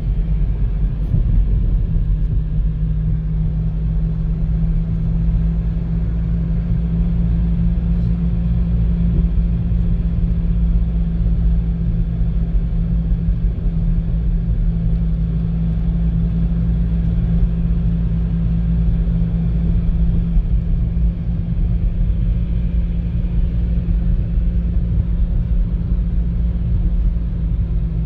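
Renault Clio driving along a country road, heard from inside the cabin: steady road and engine noise with a constant low drone that settles in about two seconds in.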